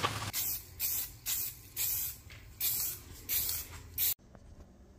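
Aerosol spray-paint can spraying the wire frame of a coffee table in about seven short hissing bursts, each under half a second, cutting off suddenly near the end.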